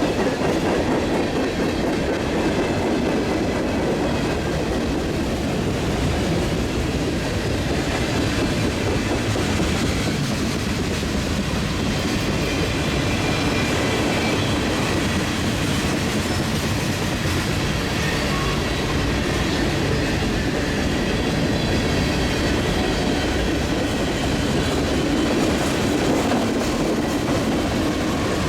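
Freight train cars rolling past on jointed track: a steady rumble of wheels with clickety-clack over the rail joints and a faint high wheel squeal.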